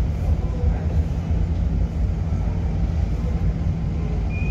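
Steady low rumble of the engines and propellers of the KM Labobar passenger ship and the harbour tug assisting it as it leaves the quay. A brief faint high tone comes near the end.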